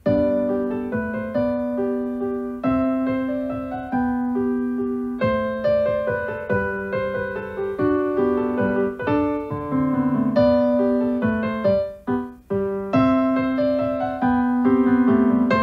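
Instrumental keyboard music: a piano melody of struck notes over lower sustained notes, with a brief break about twelve seconds in.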